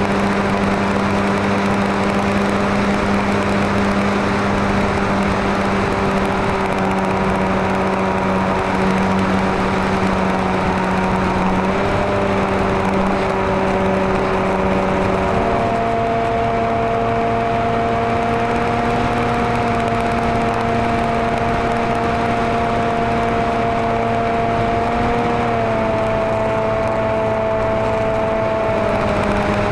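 Maxi Swift RC flying wing's motor and propeller heard from the onboard camera, a steady drone with a rushing haze. Its pitch steps up twice around the middle as the throttle is raised, then drops back in two steps near the end.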